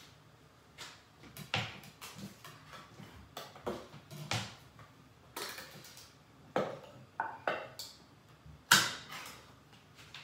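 Irregular kitchen clatter: a knife, cutting board and pans knocked and set down while cooking, about a dozen separate knocks, the loudest nearly nine seconds in.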